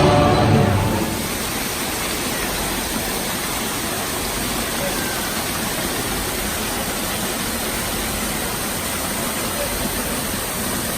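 A steady, even rushing noise, like running water, with no rhythm or change, after music fades out in the first second.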